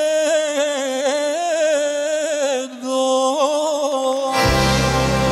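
Male singer holding long notes with vibrato on a Balkan folk song, with little under him, near the song's close. About four seconds in, the full band comes in with bass and drums.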